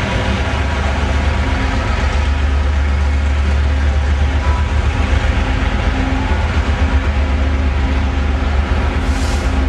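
GM diesel locomotive hauling a Taiwan Railways blue-coach ordinary train, running with a steady, loud, deep rumble and mechanical clatter, with a short hiss near the end.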